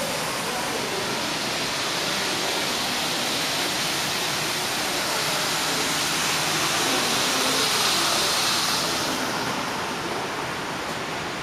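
Steady rushing hiss that swells a little around eight seconds in, with faint wavering tones underneath.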